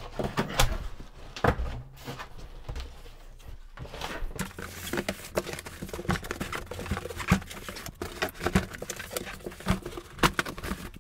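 A large cardboard box being unstrapped and opened by hand: scattered knocks, scrapes and rustles of cardboard and plastic strapping.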